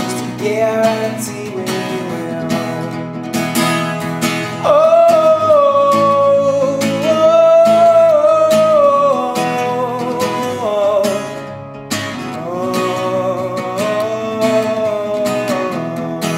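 A man singing long held notes over a strummed acoustic guitar; the voice comes in louder about a third of the way through.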